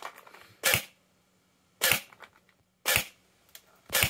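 Double Eagle M904E electric airsoft rifle (AEG) firing four single shots, about a second apart, through a chronograph, each shot a short sharp crack of the gearbox cycling and the BB leaving at around 400 FPS.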